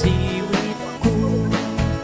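Music with a steady beat of about two hits a second, held bass notes and a melody over them.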